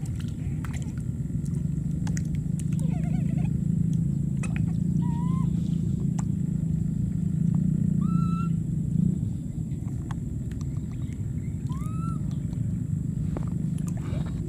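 Baby monkeys giving faint, short rising squeaks a few times over a steady low rumble, with scattered small clicks. The rumble eases about nine seconds in.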